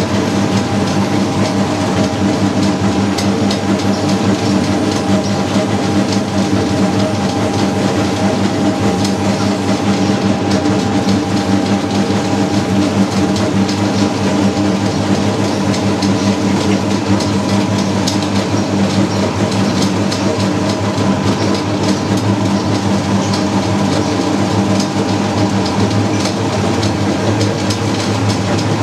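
Naswar grinding machine running steadily: a heavy pestle turns in a steel bowl of moist tobacco paste, a constant machine hum under a continuous grinding rattle.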